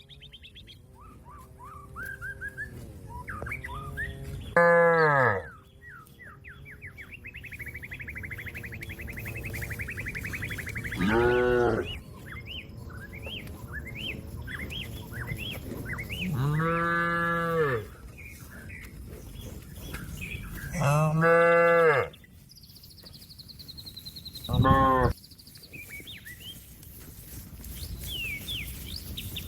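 A cow moos five times, each call a second or so long and falling in pitch at its end, calling out to other cattle. Birds chirp between the calls.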